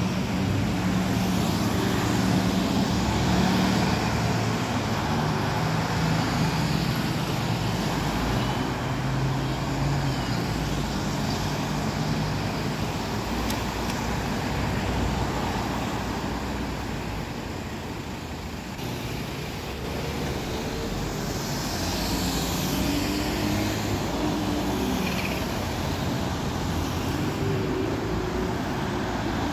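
A Stagecoach double-decker bus's diesel engine runs as the bus pulls away. Then comes general road traffic, with cars and a single-deck bus approaching and its engine rising.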